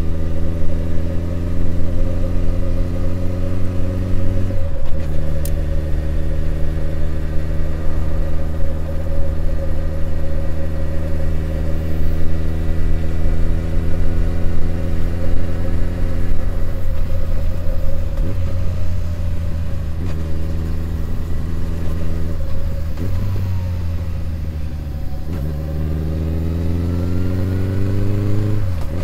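Honda CB1100EX's air-cooled inline-four engine running on the move. Its note climbs under acceleration and drops back at gear changes, about five seconds in and again near the end, with steady cruising in between.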